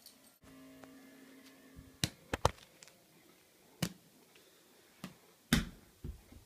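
A small ball bouncing, giving sharp knocks: a quick run of three about two seconds in, a single one near four seconds, then the loudest pair near the end.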